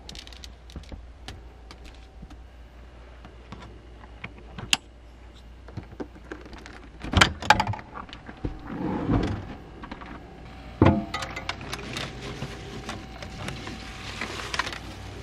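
Small fridge in a camper van being opened: its plastic latch and door clack with a few sharp knocks about halfway through, then a plastic produce bag rustles as food goes onto the shelves. Light handling clicks and taps come and go, over a low steady hum.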